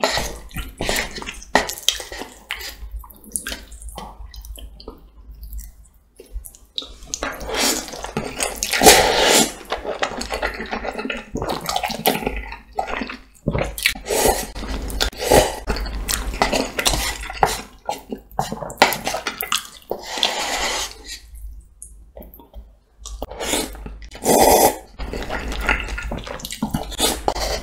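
Close-miked slurping of creamy, sauce-coated carbonara spicy chicken cup noodles, with wet smacking chews between several long slurps. The loudest slurp comes about a third of the way in.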